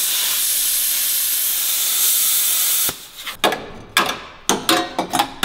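Handheld plasma cutter cutting through sheet-steel firewall: a loud, steady hiss for about three seconds that cuts off suddenly. It is followed by a run of short, sharp knocks on the metal.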